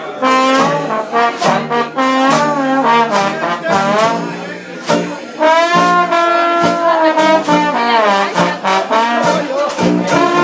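Trombone played close up, a melody of held notes and sliding, bending phrases, with the rest of a brass band playing along.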